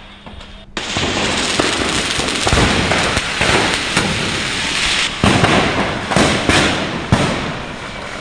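A burning stock of firecrackers going off: a dense, continuous crackle of bursts with louder bangs scattered irregularly through it, starting abruptly under a second in.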